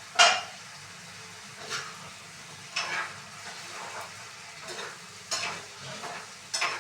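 Drumstick (moringa) and potato pieces frying in hot oil with a steady sizzle, while a spoon scrapes and stirs them around the pan about once a second. The loudest scrape comes just after the start.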